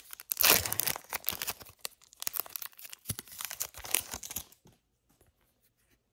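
Foil wrapper of a Topps Chrome trading-card pack being torn open and crinkled in the hands: a run of crackling rips that stops about four and a half seconds in.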